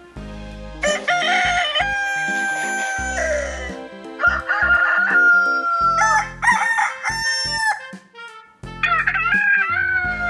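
Rooster crowing several times in long, drawn-out calls.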